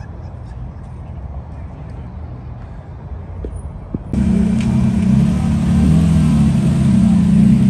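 Low background rumble of engines, then a sudden cut about four seconds in to a car engine idling loudly close by, a deep steady note with slight wavers in pitch.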